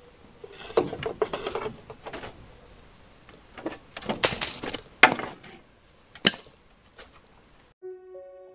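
Irregular knocks and clinks in a few short clusters, like objects being handled and set down. Near the end they cut off abruptly and soft music with sustained notes begins.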